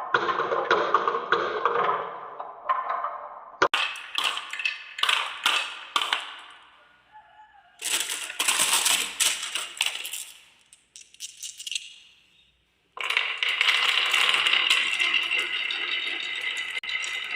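Marbles rolling and clattering down a wooden marble run, with sharp clicks as they drop and strike the track. Midway the sound dies away almost to silence, then a dense, steady rattle starts suddenly.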